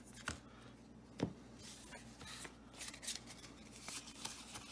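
Magic: The Gathering trading cards being handled and sorted by hand: two light taps early on, then soft, uneven sliding and rustling as the cards are flicked through, faint throughout.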